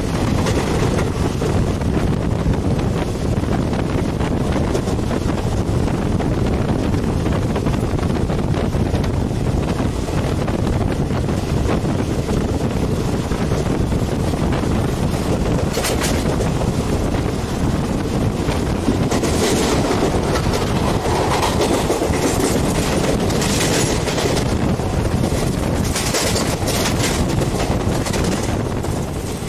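Passenger train running at speed, heard from an open coach door: a steady low rumble of wheels on the rails, with several sharper rattling bursts in the second half.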